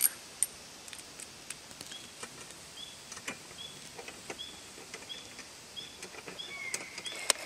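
Small metal clicks and taps as T-nuts and corner brackets are fitted into aluminum 80/20 extrusion with a screwdriver, with a sharp click at the start and another near the end. From about two seconds in, a bird calls over it, a short high call repeated about twice a second.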